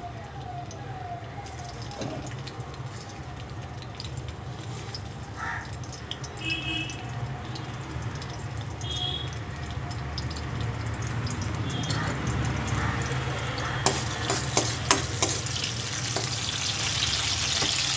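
Garlic and green chillies sizzling in hot oil in a kadai, the sizzle growing brighter and louder near the end. A few sharp taps of a metal spoon against the pan come just before it is stirred.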